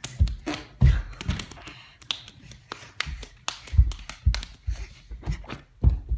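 Irregular tapping and knocking: about a dozen sharp taps, each with a low thump, spaced unevenly.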